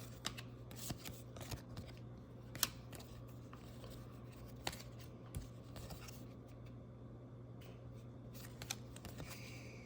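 Light clicks and scrapes of baseball trading cards being handled, slid and set down, the sharpest about two and a half seconds in, over a low steady hum.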